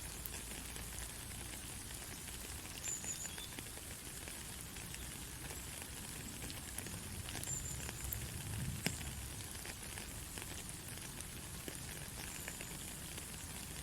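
Steady rain falling: a dense, even hiss sprinkled with many small drop ticks, with one sharper drop about nine seconds in.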